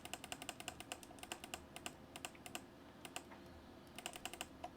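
Typing on a computer keyboard: rapid runs of light keystrokes broken by short pauses.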